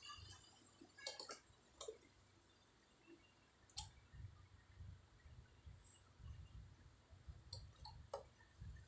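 Near silence: a handful of faint, scattered clicks over a soft low rumble that comes and goes.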